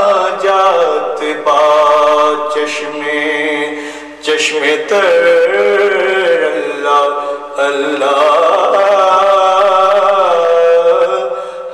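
A voice singing an Urdu devotional hymn (hamd/naat) praising Allah, unaccompanied, in long, ornamented held notes that glide between pitches.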